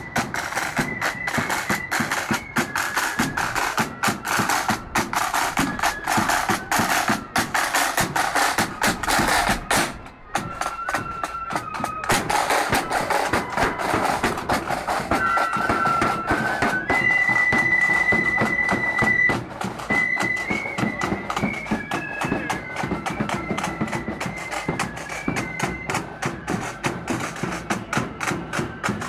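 Marching flute band playing a tune: high flutes carry the melody over a steady beat of drums.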